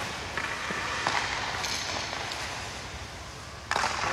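Hockey skate blades scraping and gliding on rink ice, with a sudden louder scrape near the end.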